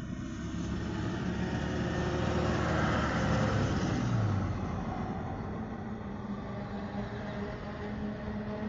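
A road vehicle going by: engine and tyre noise with a low hum, swelling to a peak about three to four seconds in and then easing off.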